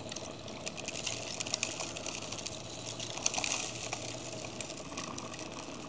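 Small magnetic stirrer motors running with a low, steady hum while magnesium salt crystals are poured from a bowl into the stirred water, making a rapid run of small ticks.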